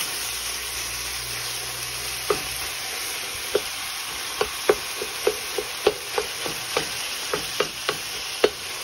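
Ground meat sizzling in an enamelled pot over softened vegetables and wine, with a steady frying hiss. A wooden spatula works into the meat to break it up, making short, irregular taps and knocks, about two a second, from a couple of seconds in.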